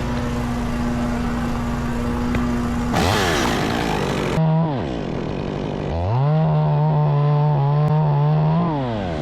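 Chainsaw engine revving. A steady engine note for about three seconds gives way to a quick rise and fall in pitch. About six seconds in, the saw revs up, holds at high speed for a couple of seconds, then drops back toward idle.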